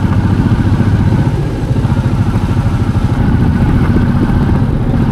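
Motorcycle engine running at a steady speed, a loud fast even pulsing that cuts in abruptly.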